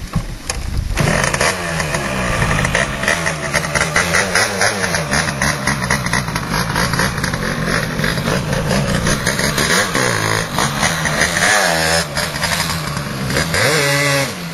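Malaguti Fifty moped's two-stroke engine, fitted with a Polini 70cc kit, picks up sharply about a second in, then revs rise and fall repeatedly as it rides off, with a last rev sweep near the end.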